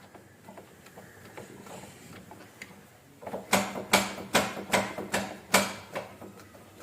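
Motorcycle clutch lever worked back and forth: faint ticking, then from about three seconds in a quick run of sharp mechanical clacks, several a second, for about two and a half seconds.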